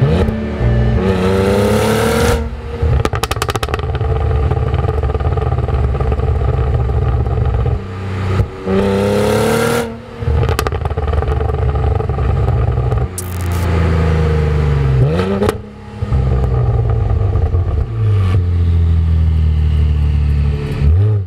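Cadillac CT4-V Blackwing's 3.6-litre twin-turbo V6 under hard acceleration, its pitch climbing repeatedly as it pulls through the gears, with short dips at the gear changes. The shifts are made with the throttle held flat, using the car's no-lift-shift feature.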